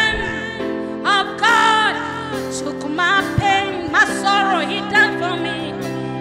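Gospel worship music played live: a saxophone carrying a slow, expressive melody with vibrato and bending runs over held keyboard chords.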